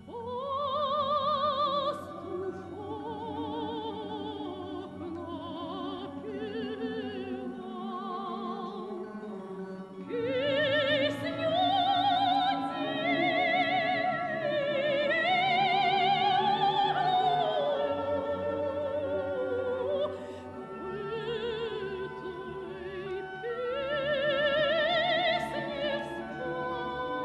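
Operatic singing with wide vibrato over classical orchestral accompaniment, sung in long held phrases with brief breaks about ten and twenty seconds in.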